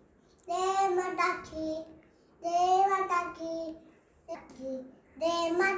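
A young boy singing a Hindi devotional song (bhajan), unaccompanied, in short phrases with brief pauses between them.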